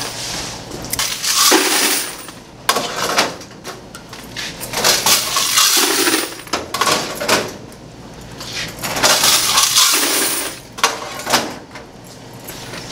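Quarters pouring and clattering into a bucket as coin boxes from coin-operated washers are emptied, in repeated bursts.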